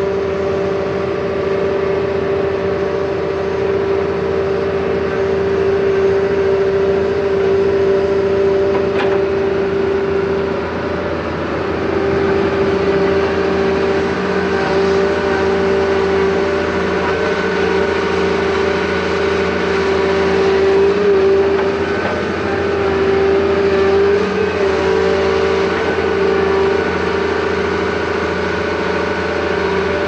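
Daewoo 175 LCV crawler excavator's diesel engine running under load: a steady drone with a strong constant tone that swells slightly now and then.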